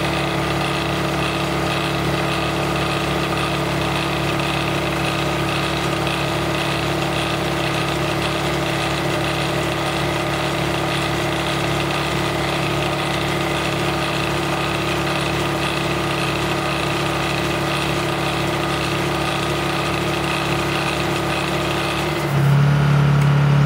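Honda EU2000 inverter generator running under the heavy load of a large electric air compressor, the two machines running together steadily. About 22 seconds in the sound changes abruptly: one tone drops out, a lower one grows stronger and it gets louder.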